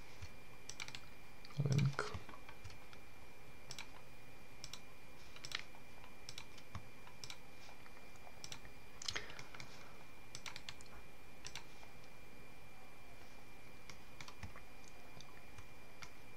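Scattered, irregular clicks of a computer mouse and keyboard, over a faint steady high-pitched whine.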